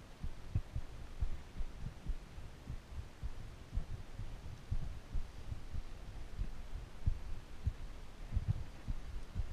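Low, irregular thumping and rumble on the microphone of a body-worn action camera, over a faint steady hiss.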